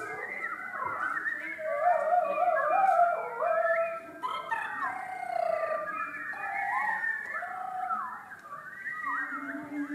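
Choir of mostly women's voices singing many overlapping glissandi in a contemporary choral piece, their pitches sliding up and down across one another. Near the end a lower voice comes in, holding one steady note.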